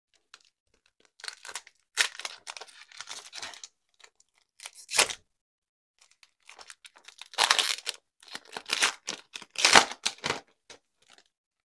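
A baseball card pack's wrapper being torn open and crinkled, then the cards inside handled and flipped: a run of short, uneven rips and rustles.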